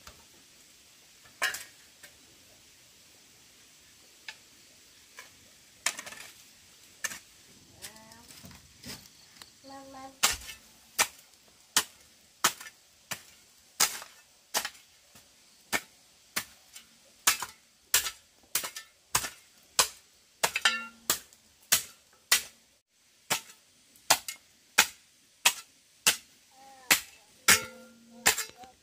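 Repeated sharp strikes of a tool, a few scattered at first, then a steady run of about two blows a second from about ten seconds in.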